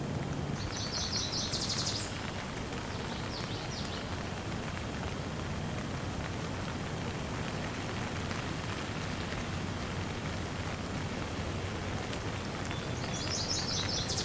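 Steady rain falling. A bird gives a high, rapid trill about a second in, a shorter one a couple of seconds later, and another near the end.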